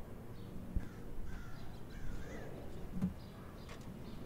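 A bird calling a few times over a quiet background, with a couple of soft low thumps, about a second in and about three seconds in.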